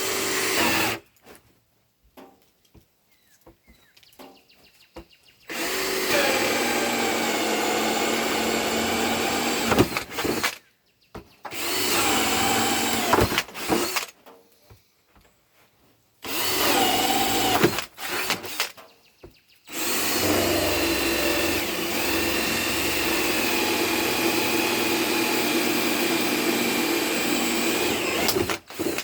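Power drill running in about five separate runs with a steady whine, the shortest about a second long and the longest about nine seconds near the end, with quiet pauses between.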